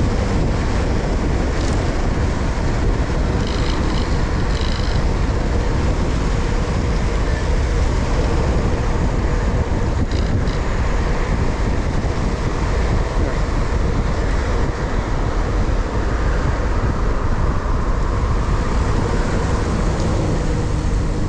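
Wind rushing over an action camera's microphone on a moving bicycle, with tyre and road noise underneath. A few short high-pitched tones sound about four seconds in and again about ten seconds in.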